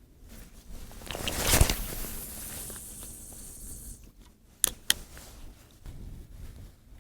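A fishing rod cast: a swish, then line hissing off the reel for a couple of seconds until it stops, followed by two sharp clicks a moment apart.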